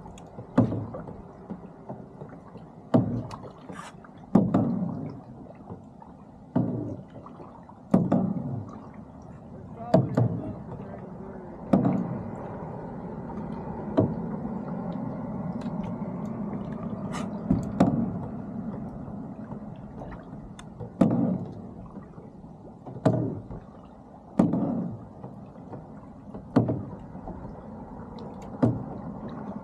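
Water slapping against the side of a moving boat's hull, a splash every second or two, each dying away quickly. A low engine hum runs beneath and swells for several seconds in the middle.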